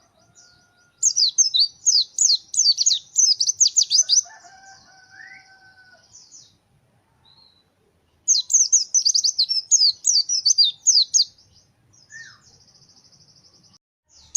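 White-eye (Zosterops, the pleci) singing in full, fast bursts of high sweeping chirps, twice for about three seconds each, each burst trailing off into a rapid buzzy trill. A fainter, lower, drawn-out call sounds in the background around the middle.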